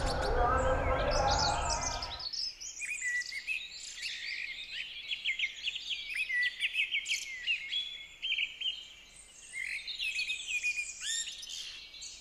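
Several songbirds chirping and singing in a morning forest chorus. For the first two seconds a low mechanical hum and rumble runs underneath, then cuts off suddenly.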